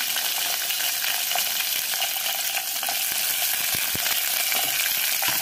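Freshly added sliced onions and dried mutton pieces sizzling in hot oil: a steady frying hiss with a few faint pops.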